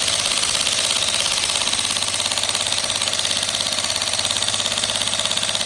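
Jackhammer running steadily, a fast, even stream of blows, with a low hum joining about two seconds in.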